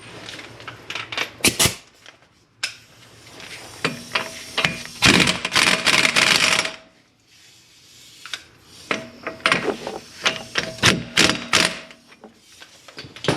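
Power tool running the hub assembly's mounting bolts in, in two rattling bursts of about three seconds each, with metal clicks and knocks before and between.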